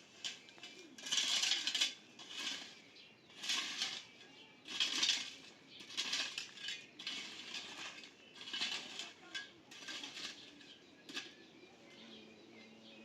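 Repeated short metallic scrapes and clinks, about a dozen irregular strokes that stop about eleven seconds in.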